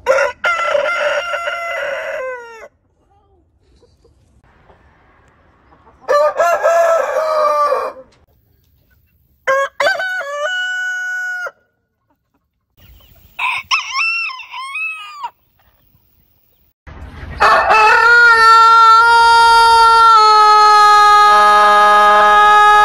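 A run of five crows from different roosters, cut one after another with short silent gaps between them. The last, starting about three-quarters of the way in, is a long drawn-out crow held on one steady pitch.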